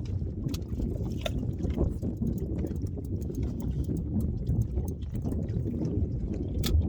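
Low, uneven rumble aboard a fishing boat, with scattered light clicks and knocks and a sharper click near the end.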